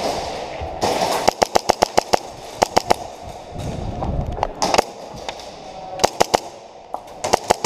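Airsoft guns firing: rapid strings of sharp pops in several quick volleys with short pauses between them.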